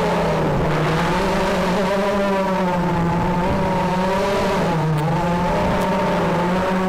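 FPV racing quadcopter's brushless motors and propellers whining in flight, picked up by the onboard camera. The pitch rises and falls with the throttle and dips briefly about five seconds in.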